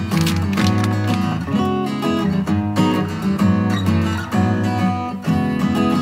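Background music: acoustic guitar strummed and plucked with a steady rhythm.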